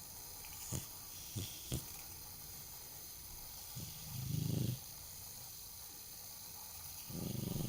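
American Shorthair cat snoring: a rough snore about four seconds in and another starting near the end. The owner puts the snoring down to its flat nose and weak breathing. Three faint clicks come in the first two seconds.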